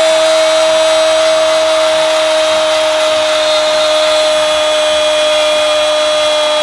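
Television commentator's long goal cry, one unbroken held "gooool" on a steady pitch that sags very slightly, over a crowd's cheering.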